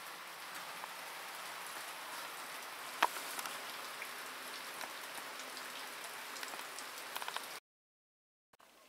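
Washing liquid dripping and pattering off a freshly cleaned aluminium cylinder head into a parts-washer tank, a steady hiss of drops with small ticks and one sharp click about three seconds in. It cuts off suddenly near the end.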